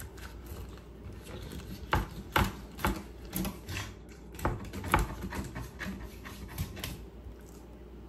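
Fillet knife riding down a mackerel's backbone on a wooden cutting board, with irregular clicks and short scrapes as the blade crunches over the vertebrae and knocks the board.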